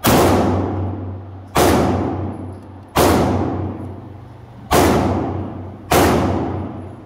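Five shots from a Canik TP9 9mm pistol, fired singly about one and a half seconds apart. Each shot rings out with a long echo in the indoor range.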